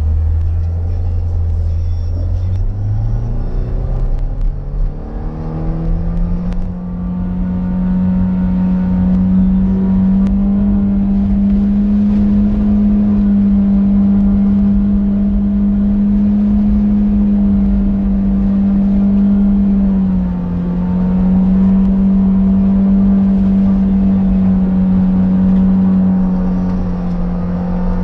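Car engine revving up about two seconds in and then held at high revs under load as it climbs a muddy slope, with a brief dip in revs about twenty seconds in.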